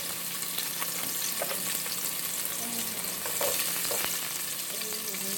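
Onions sizzling steadily in hot oil in a pot, just after going in, with a few light clicks.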